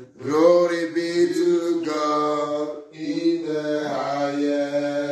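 A man chanting in long held tones, the worshipful intoning of prayer, in two drawn-out phrases with a short break about three seconds in.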